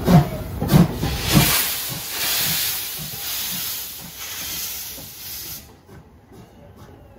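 JNR Class C11 steam tank locomotive starting away: a few sharp exhaust chuffs about two-thirds of a second apart, then a loud steady hiss of steam blowing from the cylinder drain cocks, which cuts off suddenly near the end.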